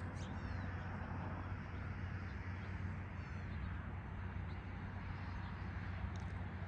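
Rural early-morning ambience: a steady low hum with a few short, high bird calls. There is a chirp near the start, a quick run of falling notes in the middle, and another call near the end.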